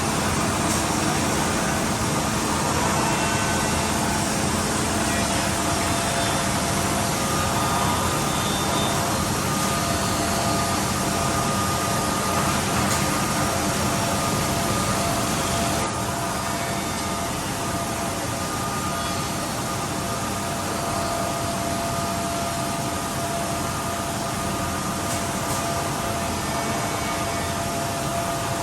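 CNC machine running during horizontal drilling and slot cutting: a steady mechanical noise with a constant whine, getting slightly quieter about halfway through.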